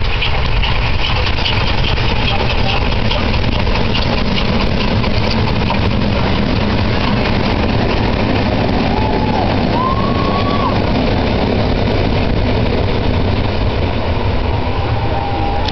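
Steam-hauled passenger train rolling past on the track, a steady loud rumbling noise. Two short higher tones sound a little past the middle, the second higher than the first.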